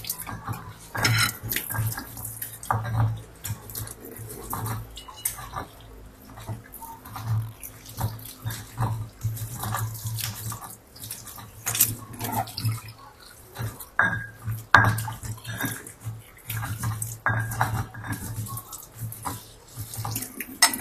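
Stone pestle (ulekan) grinding and crushing fried chillies, garlic, tomato and shrimp paste into a wet tomato sambal in a stone mortar (cobek). It goes in repeated, irregular strokes of stone knocking and scraping on stone, with the wet mash squelching, about one or two strokes a second.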